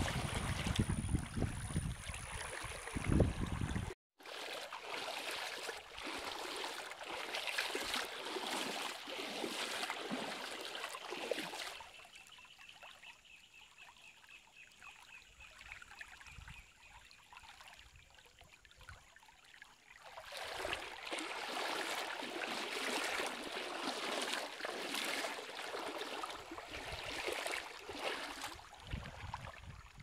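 Shallow river water flowing and trickling, with a brief drop-out about four seconds in. It is quieter for a stretch in the middle, where a faint high trill can be heard.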